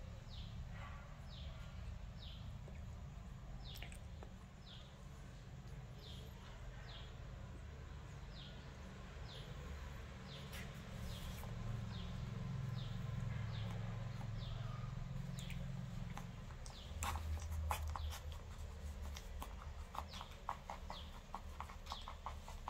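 Newborn puppies suckling at their mother's teats: soft wet clicking and smacking, thickest in the last few seconds. A short, high, falling chirp repeats about once a second through the first half, over a low steady rumble.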